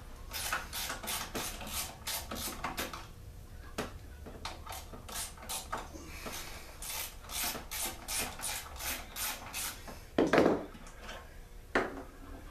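Short scraping and rubbing strokes, about two a second, from hands and tools working on a small two-stroke generator's fuel tank as it is loosened for removal. A louder knock comes about ten seconds in, and a sharper one near the end.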